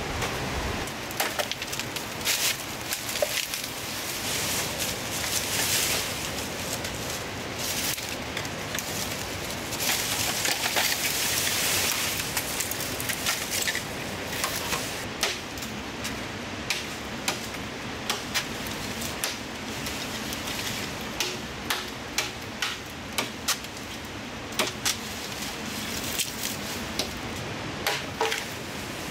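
Large knife chopping green bamboo stalks: sharp woody knocks and cracks, coming often and in quick runs through the second half, with rustling of bamboo canes and leaves in between.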